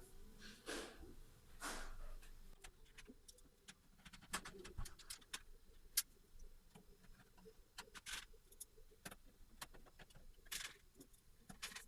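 Faint scattered clicks and short scrapes of metal screws and a screwdriver as a power supply is screwed into a PC case, with a sharper click about six seconds in.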